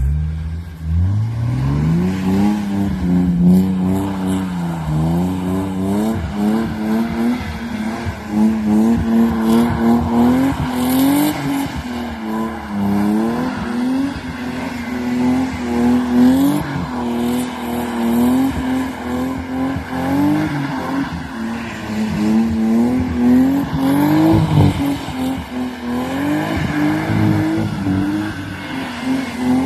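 BMW E36's M50 straight-six engine revved hard while drifting in snow: the revs climb steeply about a second in, then stay high and swing up and down again and again.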